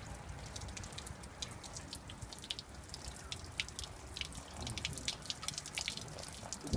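Dirty water dripping and trickling from a punctured flexitank bag, in quick irregular drops, over a low steady rumble.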